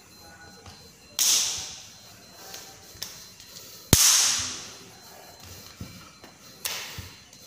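Three sharp hand slaps struck during silat movements, evenly spaced, the middle one the loudest, each ringing briefly in the hard-floored hall.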